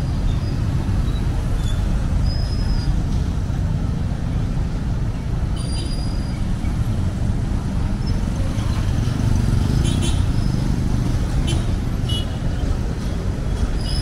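Busy city street traffic: a steady rumble of motorcycles and cars passing close by, with a few brief high-pitched squeaks and clicks.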